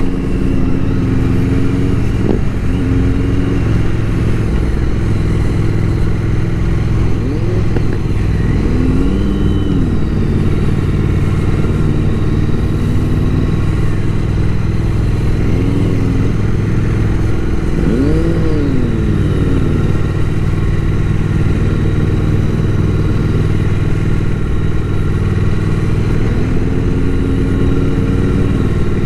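Motorcycle engine running under way with a steady low drone; the revs rise and fall briefly twice, near the middle and again a few seconds later.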